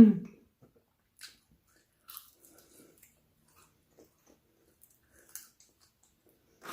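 Eating sounds: quiet, scattered crunches and chewing noises from someone eating. A short, loud low sound with falling pitch comes right at the start.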